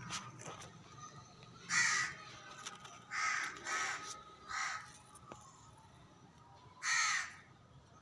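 A bird calling with five harsh calls: one about two seconds in, three close together between three and five seconds, and one about seven seconds in.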